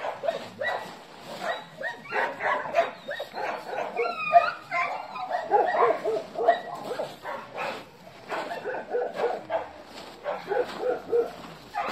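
Dogs barking and yipping in quick short calls, with a few high whines about four seconds in.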